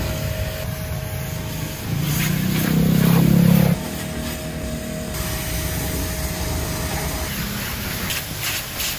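Orient Superjet 100S induction-motor pressure washer running, its water jet hissing onto a car's paint and bumper, with a faint steady motor tone. A louder low hum swells in for a couple of seconds in the middle.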